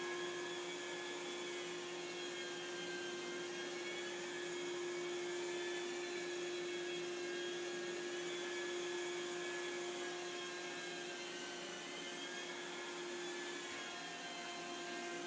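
Rotary carpet-extraction machine and its vacuum running steadily as the head is worked over wet carpet: a constant hum with a steady whining tone over a rushing noise.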